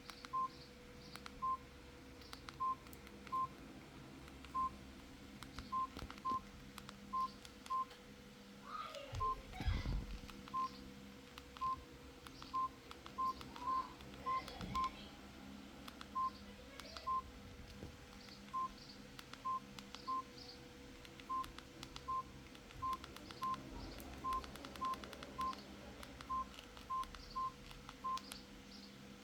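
Samsung GT-E1200 mobile phone keypad beeps: short, single-pitched beeps at uneven intervals, about one or two a second, as keys are pressed. A brief low bump of handling comes about nine seconds in, over a faint steady hum.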